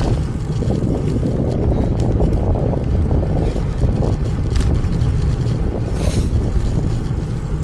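Strong gusty wind buffeting the microphone on a moving road bike: a loud, low rumble that rises and falls with the gusts.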